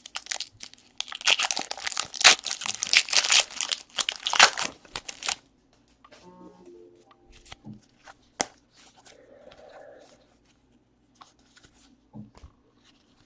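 A baseball card pack wrapper being torn open and crinkled for about four seconds, then stopping abruptly. It is followed by a few scattered light clicks and taps as the cards are handled.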